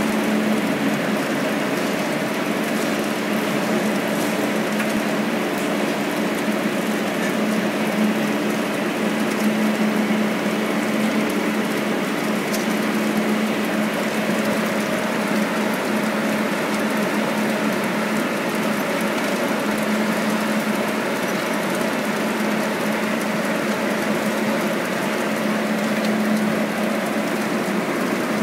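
Food-production line running: wire-mesh conveyor belts and their machinery give a steady mechanical noise with a constant low hum.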